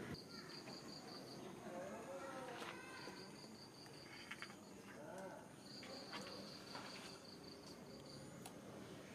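Faint insect chirping, cricket-like: three trains of evenly spaced high pulses, about five a second, each lasting roughly one and a half to two and a half seconds with short pauses between.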